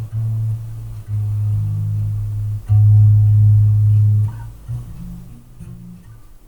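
Electric bass guitar played through a bass amp cabinet: a run of long, held low notes that change pitch every second or so, loudest about three to four seconds in, then a few shorter, quieter notes near the end.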